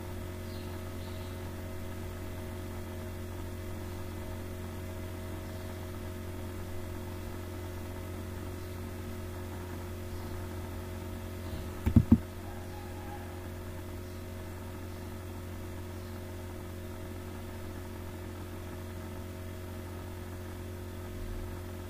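Steady low electrical hum on an open microphone, with a quick cluster of three thumps about halfway through.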